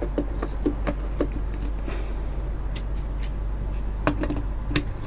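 Sharp plastic clicks and taps of plug-in relays being handled and pushed into their sockets, in two short clusters, one at the start and one about four seconds in, over a steady low hum.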